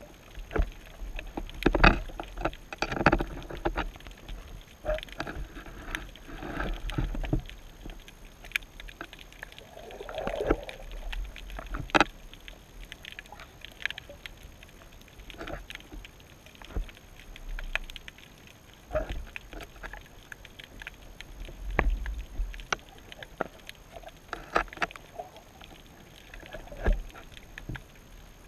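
Underwater sound of a crab picking at fish bait on a camera rig: irregular clicks and knocks against the rig, with low surges of sea swell. One sharp knock stands out about twelve seconds in.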